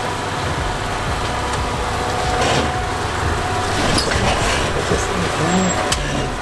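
An off-road 4x4 vehicle's engine running steadily under a rushing noise as it crawls up rock ledges.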